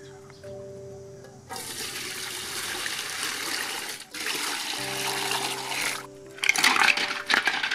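Water at a rolling boil in a large aluminium cooking pot, a loud, even rushing hiss with a brief break about four seconds in, over background music. Near the end, large sea snail shells are tipped from a bamboo basket into the water: loud, choppy splashing with sharp knocks of shell.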